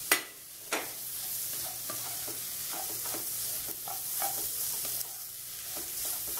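Wooden spatula stirring and scraping scrambled egg and drumstick leaves in a non-stick kadai, with a steady sizzle of frying underneath. A sharp knock comes right at the start and a softer one just under a second in.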